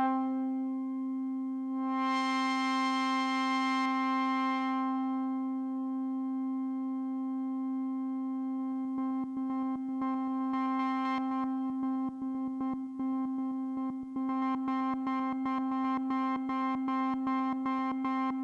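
Behringer Odyssey analog synthesizer holding one sustained note. A brighter layer swells in for a few seconds early on. In the second half a fast stuttering pulse pattern runs over the held note, growing busier toward the end.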